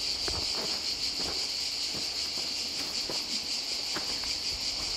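Steady high-pitched chorus of insects, with a few soft footsteps on a dirt path.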